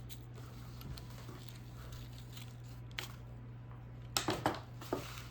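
A tool prying under the old leather of a book's cover board, giving a few sharp crackling, tearing clicks as the leather lifts: one about three seconds in and a quick cluster after four seconds.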